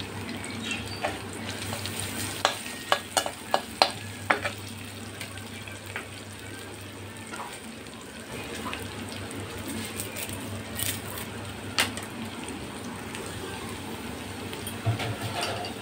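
Garlic, ginger, cumin and dried red chillies sizzling in hot oil in a non-stick pan, the tempering step of a curry. A steady frying hiss is broken by a run of sharp pops a few seconds in and a few more later on.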